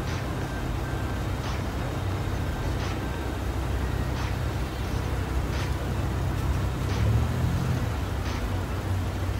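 Toyota Crown Royal's 3.0-litre V6 idling steadily through an aftermarket dual exhaust, a low, even hum. Faint sharp ticks recur about every second and a half.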